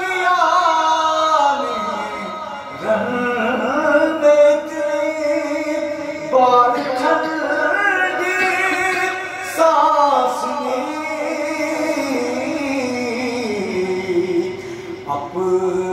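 A man singing Urdu devotional verse unaccompanied into a microphone, in the sung tarannum style of poetry recitation. He sings several long drawn-out phrases, sliding between notes, and the pitch falls toward the end.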